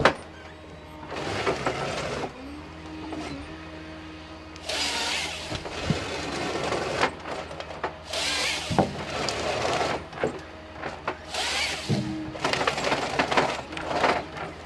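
A forestry harvester with a hydraulic harvesting head at work. The engine hums steadily under a hydraulic whine that rises and drops away. Several rough bursts of sawing and stripping noise come through, with a few sharp cracks of breaking wood.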